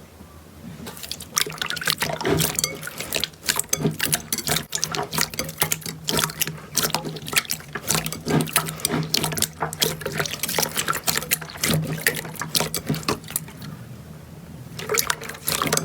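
Hands squeezing and poking slime: a dense run of wet clicks and pops that starts about a second in, eases off briefly near the end, then returns, over a low steady hum.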